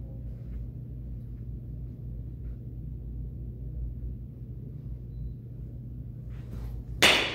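A steady low hum, then near the end a metal baseball bat strikes a ball once: a sharp, loud crack that rings on briefly as a high ping.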